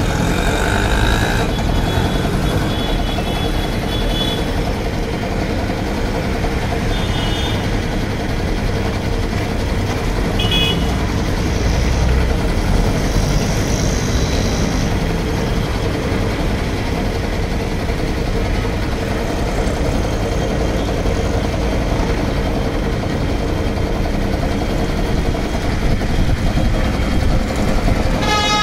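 Belt-driven single-piston air compressor with a 0.5 hp Crompton single-phase electric motor running steadily: a loud, even mechanical drone with a steady hum under it.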